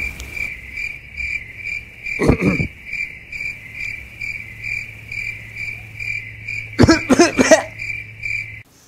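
Cricket-chirping sound effect: a high chirp pulsing about three times a second over a low hum, cutting off suddenly near the end. A short falling voice-like sound breaks in about two seconds in, and a few louder voice-like sounds come about seven seconds in.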